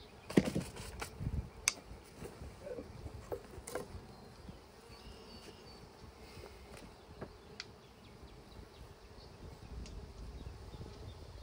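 Honeybees from a freshly installed package buzzing as they fly around the open hive. Near the start come a few sharp knocks and clatters as the wooden hive equipment is handled, the loudest about half a second in.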